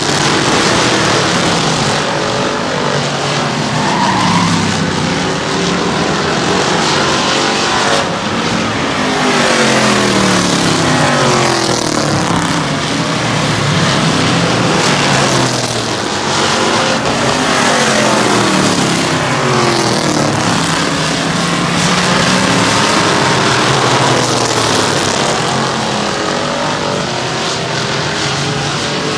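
Several oval-track race car engines running hard around a short track, their pitch rising and falling over and over as they accelerate, lift and pass by.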